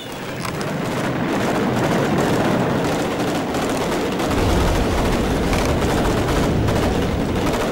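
Battle sound from a film soundtrack: a dense din of gunfire and explosions, with a deep rumble swelling from about four seconds in.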